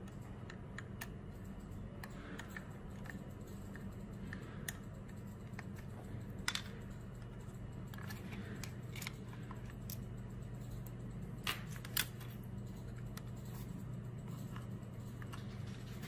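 Plastic clicks and scraping as the back cover of a battery-powered video doorbell is worked off by hand, with a sharp snap midway and two more close together about three-quarters through, over a steady low hum.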